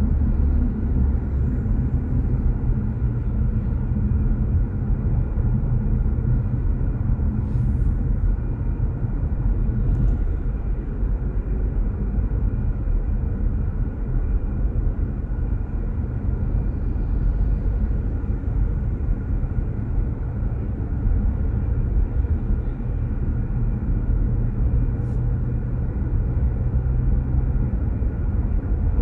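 Steady low rumble of a car in motion: engine and road noise, with a faint engine hum whose pitch holds level for long stretches. A few faint ticks come through, one about eight seconds in, one about ten, and one near the end.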